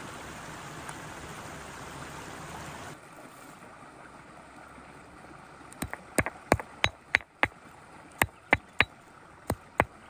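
A steady rush like running or pouring water that cuts off suddenly about three seconds in, then, from about six seconds in, a run of about a dozen sharp, irregular clicks and knocks.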